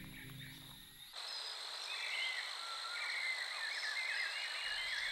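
Soft music fades out, and about a second in the sound changes abruptly to forest ambience. It is a steady high-pitched insect drone overlaid with rapid, repeated warbling chirps from calling animals.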